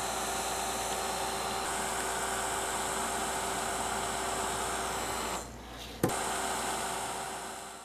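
Craft heat gun blowing steadily, a rushing air noise with a faint motor whine. The noise drops about five and a half seconds in, there is a sharp click about six seconds in, and the noise then dies away near the end.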